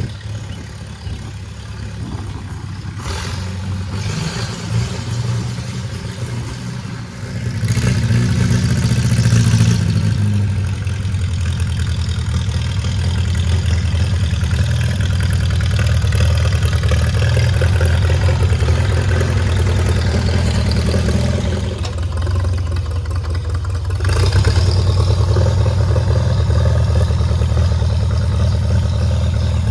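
Farmall A tractor's four-cylinder gasoline engine running, growing louder about seven seconds in, easing off briefly around twenty-two seconds, then picking up again.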